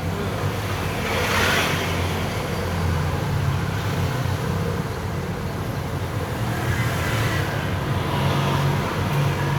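Road and traffic noise heard from inside a moving small electric vehicle: a steady low rumble under a hiss that swells about a second in and again around seven seconds.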